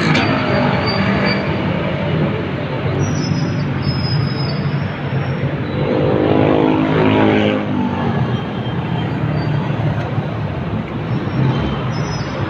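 Steady vehicle traffic noise, with a pitched engine-like sound swelling and fading about six to eight seconds in.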